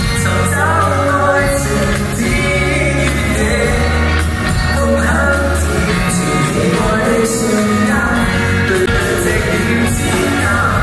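Male singer singing a pop song live into a handheld microphone with a backing band, amplified in a concert hall.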